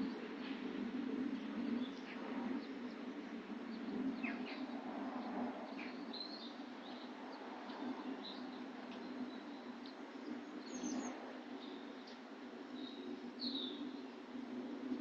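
Songbirds calling: short, scattered chirps and tweets, a few at a time, over a steady low background hum.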